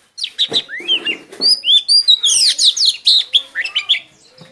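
A songbird singing a fast, loud run of chirping notes that sweep up and down, starting just after the beginning and stopping shortly before the end.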